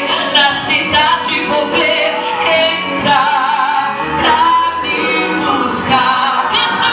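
A woman singing a gospel worship song into a handheld microphone over a PA, holding several long notes.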